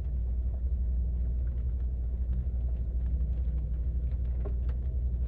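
Steady low rumble of a car interior, with faint scattered light ticks.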